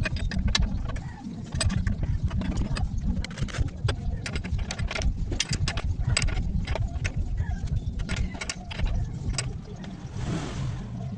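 Low, steady vehicle engine rumble with many sharp metallic clicks and clanks over it, and a short hiss near the end.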